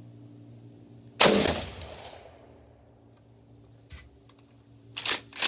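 A single shotgun shot of a handloaded Lee Drive Key slug in a Winchester AA shot-cup wad, about a second in, dying away over about a second. Near the end come a faint click and two or three sharp clacks.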